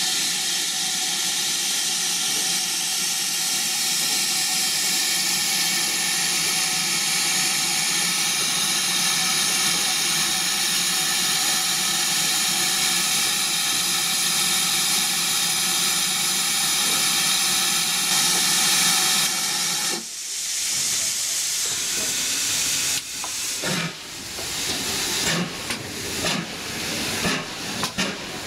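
Steam locomotive letting off steam in a loud, steady hiss. The hiss stops sharply about twenty seconds in, leaving softer, uneven hisses and short puffs.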